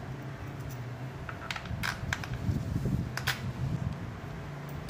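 A few small metallic clicks as washers are fitted onto the engine cover's bolts, over a steady low hum.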